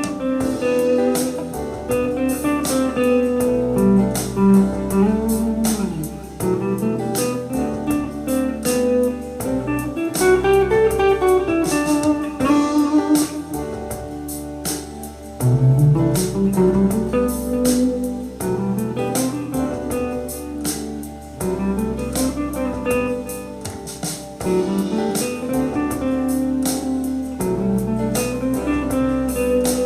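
Electric guitar improvising lead lines in E minor, with bends and slides, over a backing track with a steady drum beat.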